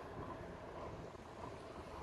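Low, steady rumble of an electric fat-tyre bike rolling slowly over pavement, with light wind buffeting the camera microphone.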